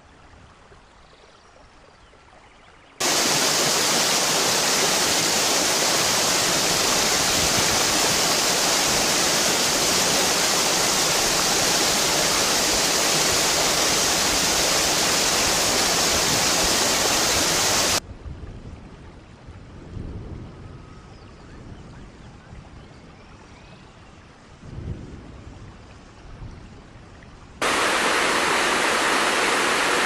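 Waterfall water rushing in a steady, loud hiss that cuts in abruptly about three seconds in and cuts off abruptly partway through, then returns near the end. In between, and at the start, a much fainter flow of water with a few low thumps.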